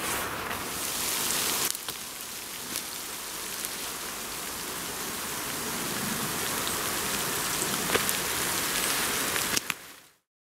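Steady rain falling, an even hiss with scattered louder drops. It cuts off suddenly near the end.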